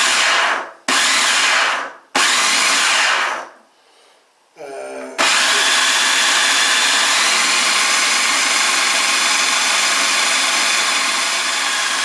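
Electric food processor chopping chunks of pork belly and ham: three short pulses of about a second each, then a continuous run of about seven seconds.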